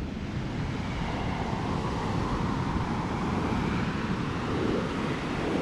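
Waves breaking and washing up a sandy beach, with wind blowing on the microphone throughout.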